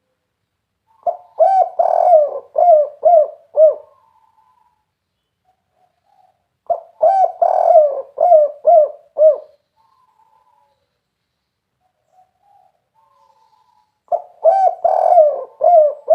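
Spotted dove (tekukur) cooing its 'kuk 3' song: three phrases of about six short, arched coos each, every phrase lasting about two and a half seconds, with gaps of a few seconds between them.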